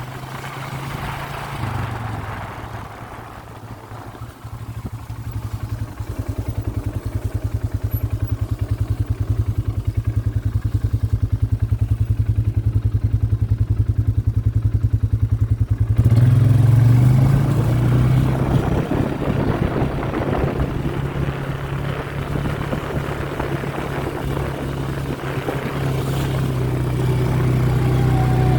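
Vehicle engine running steadily while driving, its low even firing getting louder over the first half. The sound changes abruptly about halfway through and carries on busier and noisier.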